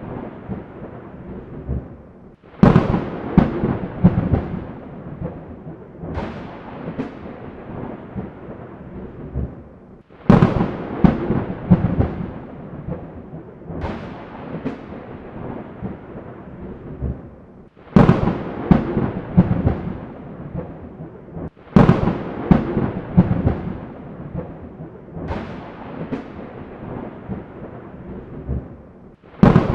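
Thunder: sudden sharp claps, each followed by crackling and a low rolling rumble that dies away over several seconds, coming about five times over a steady hiss of rain.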